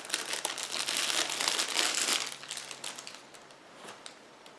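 A clear plastic bag crinkling as a neck knife is pulled out of it. It is loudest for about the first two seconds, then dies away with a few faint clicks near the end.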